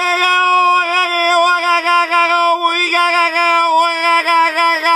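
A man's long, loud yell held on one high note, steady at first, then wavering in quick pulses of pitch and loudness from about a second in.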